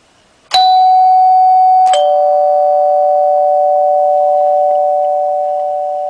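1980s Friedland 454 Warbler door chime giving its single ring, the back-door signal: a two-note ding-dong. One struck note sounds about half a second in and a lower note about a second and a half later, and both ring on and fade slowly.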